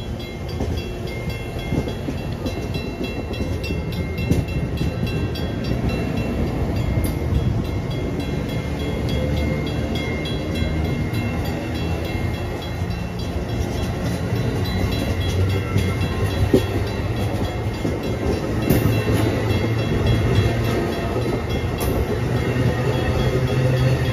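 Amtrak Amfleet passenger cars rolling slowly past: a steady rumble of wheels on rail, with light clicking as the wheels cross the rail joints.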